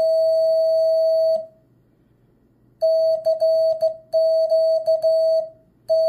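Morse code oscillator's beeper keyed by hand with a straight key: one steady tone held until about a second and a half in, then after a pause the same tone broken into hand-sent dahs and dits spelling CQ, with the first letter of DE near the end.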